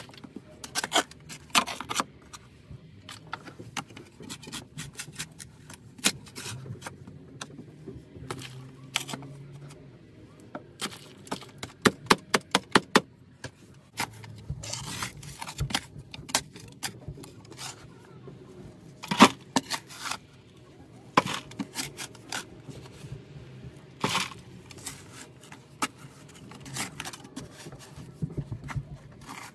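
Short-handled digging tool chopping and scraping into packed dirt and stones, in irregular sharp strikes with a quick flurry around the middle.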